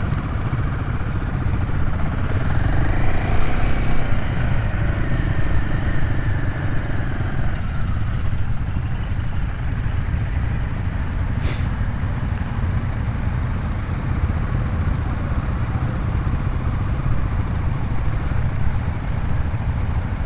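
Royal Enfield Himalayan 450's single-cylinder engine running steadily at low speed, a low, even engine note heard from the rider's seat. A single sharp click about eleven seconds in.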